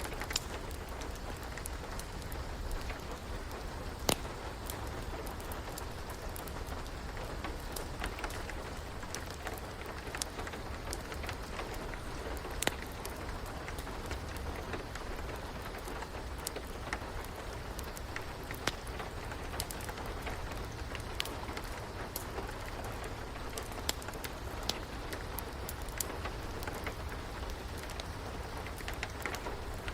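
Steady rain, with the irregular sharp pops and crackles of a wood fire scattered through it.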